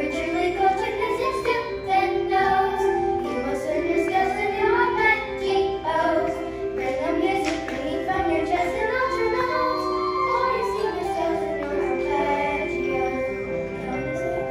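Children singing a song together with instrumental accompaniment.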